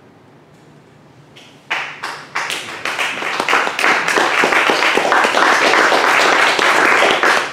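Audience applause: after a quiet first second and a half, scattered hand claps break out and quickly build into steady clapping.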